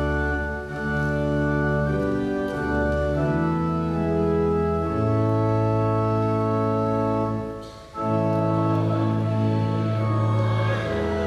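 Church organ playing sustained hymn chords as the introduction to a hymn, with a brief break in the sound about eight seconds in.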